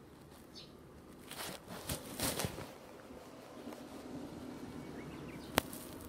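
Rustling and handling noise from the camera and fleece clothing in a few bursts as the filmer moves. A faint short bird chirp comes just before, and one sharp click about five and a half seconds in.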